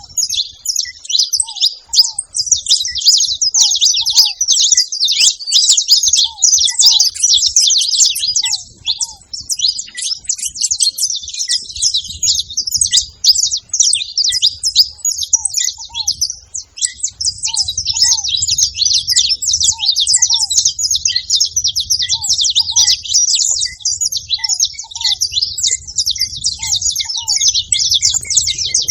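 A flock of saffron finches chirping and singing together, a dense, unbroken chatter of high overlapping calls. A short, lower falling note repeats about once a second underneath.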